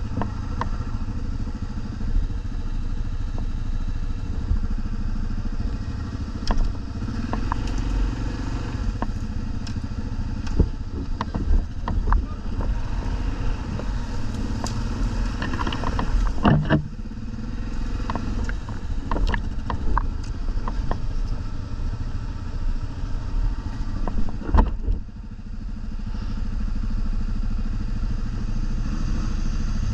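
ATV (quad) engine running steadily, with scattered knocks and clatter. The engine sound dips briefly about 25 seconds in, then picks up again.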